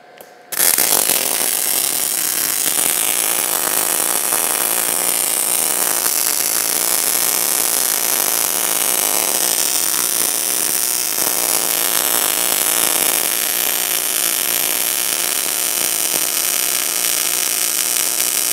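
MIG welding arc on steel plate, burning steadily as a carriage-driven torch lays a bead with the drag (pull) technique at a severe torch angle. It strikes abruptly about half a second in.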